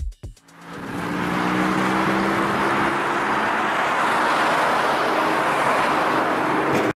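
A car driving on the road: an engine hum over steady tyre and road noise that builds up in the first second and cuts off abruptly near the end.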